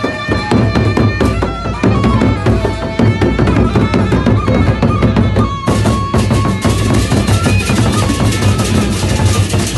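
Gendang beleq ensemble playing: large drums beating a fast, dense rhythm under a few held pitched notes. About six seconds in, a bright, clashing layer comes in much louder on top.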